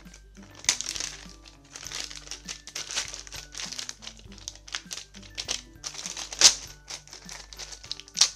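Clear plastic bag crinkling in irregular bursts as a fuse-bead pegboard is handled and unwrapped from it, loudest about a second in and again near the end, over soft background music.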